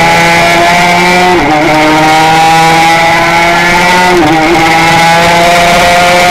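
Honda RS125 single-cylinder two-stroke race engine at full throttle, its pitch climbing steadily, with quick upshifts about one and a half seconds and four seconds in, each a brief dip before the climb resumes.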